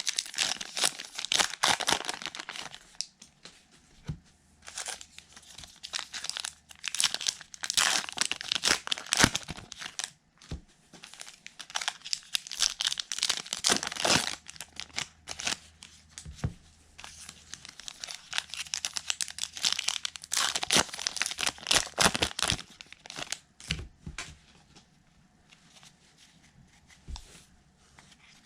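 Wrapping of baseball card blaster boxes and packs being torn open and crinkled by hand, in several rustling spells, quieter with a few light taps near the end.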